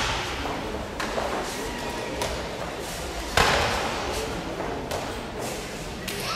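Sharp slaps and thuds of karate conditioning strikes landing on partners' bodies, echoing in a large gymnasium hall. A loud impact opens the stretch and another comes about three and a half seconds in, with fainter knocks between.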